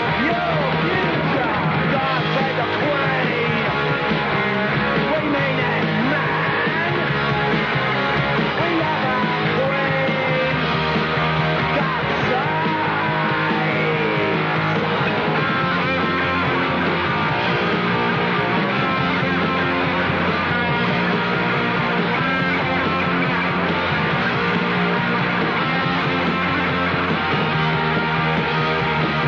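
Punk rock music at a loud, steady level: a full band with electric guitars, bass and drums playing on without a break.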